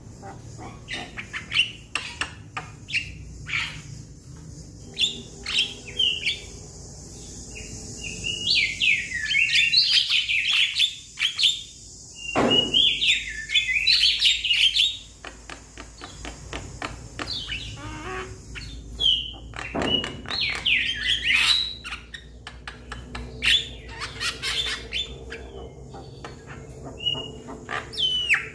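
Young Javan mynas calling to their companions: a rapid run of sharp clicking notes with short whistles, and loud harsh chattering runs about a third of the way in and again about two-thirds of the way in.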